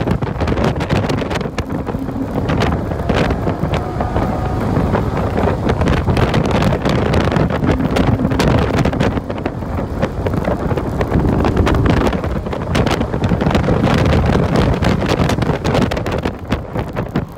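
Cabin noise of a 2014 Porsche 981 Cayman S at track speed, about 90 to 115 mph: its flat-six engine under load mixed with heavy wind and road noise, the microphone buffeted by wind throughout.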